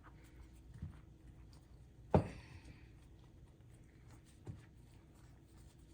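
A few soft knocks of kitchen handling, the loudest about two seconds in, as flour-coated chicken wings are handled and set down in a dish, over a faint steady hum.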